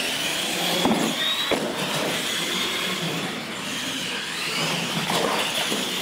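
Radio-controlled monster trucks racing flat out on a concrete floor: electric motors and gears whine steadily over the rush of the tyres, with a couple of sharp knocks about a second in.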